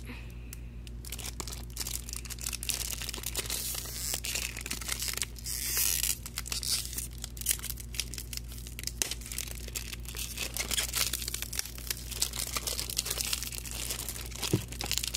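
Thin plastic packaging crinkling and tearing as it is worked off a small clear plastic box by hand, with many small crackles and clicks and a louder rip about five to six seconds in.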